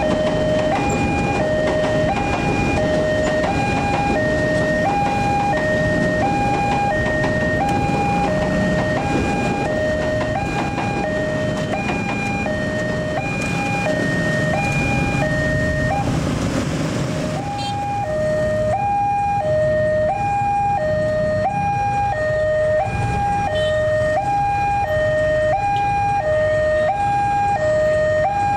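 Railway level-crossing warning alarm sounding its two-tone high-low signal, about one cycle a second, the warning that a train is approaching. Road traffic rumbles underneath. A rush of louder noise swells about halfway through and then fades.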